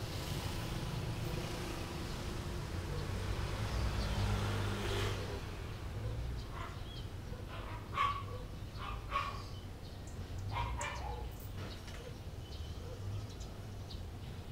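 A dog barks a handful of short times, loudest about eight and nine seconds in, over a steady low hum.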